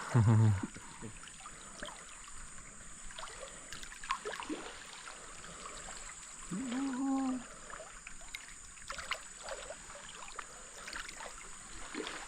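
Water splashing and trickling in a river pool, with many small irregular splashes. A short low vocal sound comes right at the start and another brief voiced sound about halfway through.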